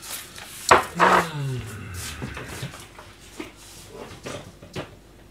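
A sharp knock, then a man's wordless voice sliding down in pitch for about a second, followed by a few faint clicks of tableware.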